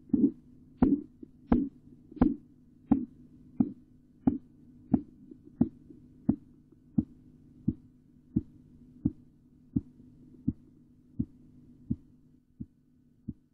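Korotkoff sounds heard through a stethoscope as a blood pressure cuff deflates: a regular tapping with each heartbeat, about one and a half beats a second. The beats are loudest and fullest in the first few seconds, then grow fainter toward the end.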